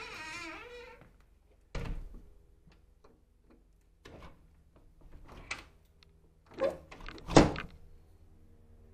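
A wooden door being handled: a wavering pitched sound at the start, a sharp thud about two seconds in, a few light clicks and knocks, then two heavier thuds near the end, the second the loudest.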